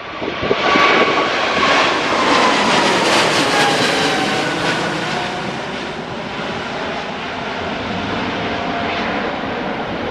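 Boeing 777-300 twin-engine jet climbing out at takeoff power and passing overhead: loud jet engine noise with whining tones that fall in pitch as it goes by, then easing off slightly as it moves away.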